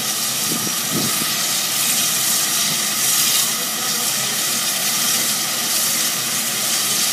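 Santa Fe 4-6-2 steam locomotive No. 3415 hissing steam steadily, with a few low wavering sounds in the first second.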